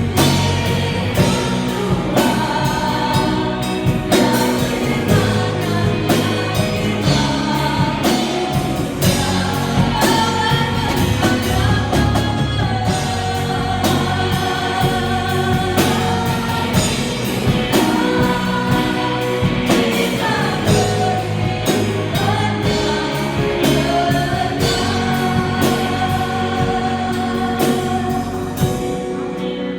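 Christian worship song: voices singing over a band with a steady drum beat.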